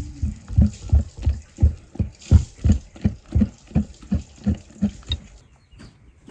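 Cake batter being beaten by hand in a bowl, in an even rhythm of about three strokes a second. The strokes stop about five seconds in.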